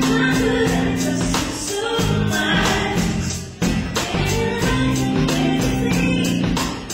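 Live band playing: drum kit with cymbals, electric guitar and singing, loud and continuous.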